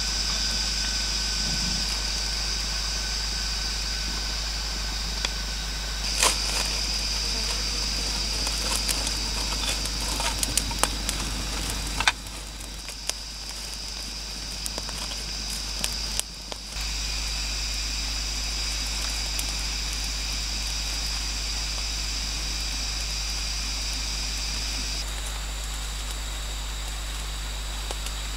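Small fire of twigs and dry palm leaves catching and burning, with scattered crackles and sharp pops, mostly in the middle, over a steady high-pitched hum.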